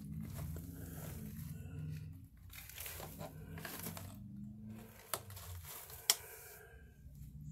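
Hay and cardboard rustling and crinkling as a small pet rabbit shuffles about in its hay-lined box, with two sharp knocks about a second apart near the end.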